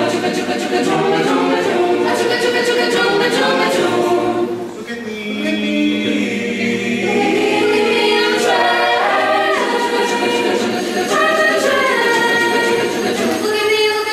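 Mixed ensemble of young male and female voices singing a cappella in harmony, with no instruments; the sound dips briefly about five seconds in.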